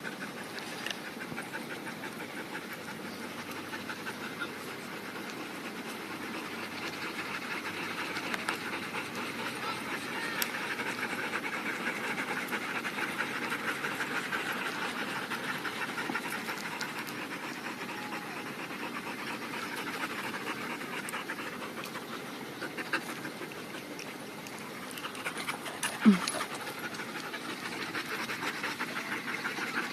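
Dogs panting fast and steadily, winded from a hard run. One brief, louder sound that drops in pitch cuts in about four seconds before the end.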